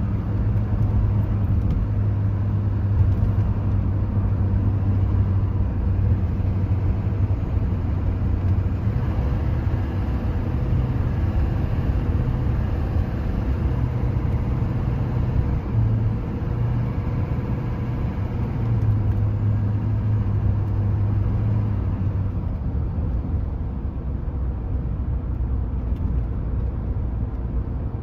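Cab interior sound of a 2001 Chevrolet Silverado K3500's 6.6-litre Duramax turbo-diesel V8 under way: a steady low engine drone over road noise. About three-quarters of the way through, the drone softens and drops lower.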